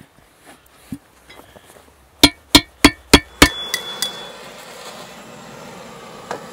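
Five sharp metallic clinks, about three a second, each briefly ringing, followed by a steady hiss.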